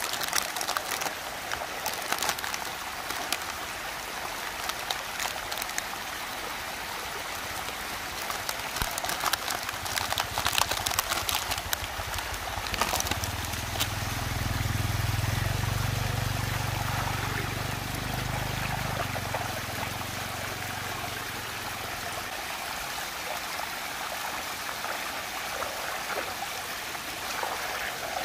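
Water rushing steadily as it swirls down a whirlpool vortex, with plastic toy packaging crinkling and crackling as it is torn open through the first half. A low rumble rises and fades between about 13 and 21 seconds in.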